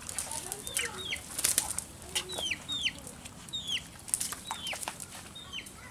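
A bird chirping: short falling chirps, about nine of them, often two close together. Under them is a rustling and slapping from the cast net and the fish being picked out of it.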